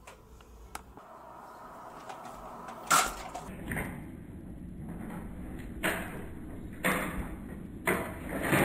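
Nerf foam-dart blaster with a revolving cylinder being cocked and fired: one sharp loud crack about three seconds in, then several short plastic clacks about a second apart.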